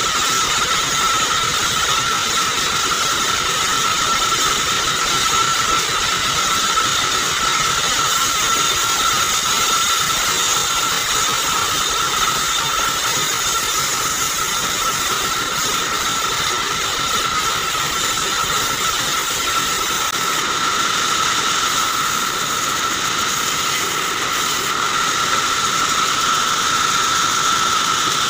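Sawmill bandsaw running steadily with a high whine as short log sections are fed by hand through its blade and cut into small blocks.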